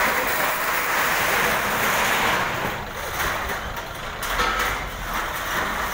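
Crowd commotion, many voices shouting at once in waves, over the engine of a Toyota HiAce microbus driving off through the crowd.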